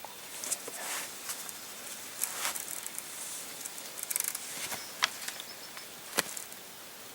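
Light rustling with scattered sharp clicks and ticks; the sharpest clicks come about five and six seconds in.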